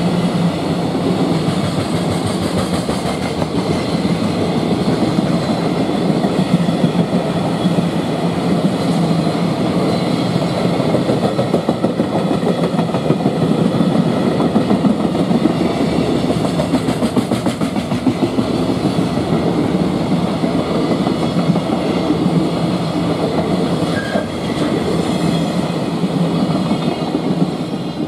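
Container wagons of a long freight train, Koki 107 container flatcars, rolling past at speed: a loud, steady rumble with the wheels clacking over the rail joints in a rapid rhythm. The noise starts to fall away right at the end as the last wagon passes.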